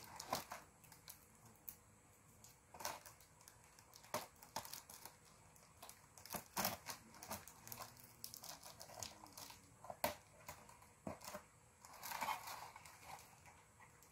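Scissors cutting through clear packing tape on a cardboard box, heard as irregular snips, scrapes and crinkles of tape and cardboard, with a longer rustle near the end.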